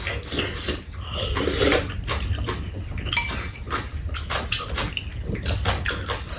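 Slurping and chewing of kimchi sujebi soup, with metal spoons and chopsticks clicking against ceramic bowls many times.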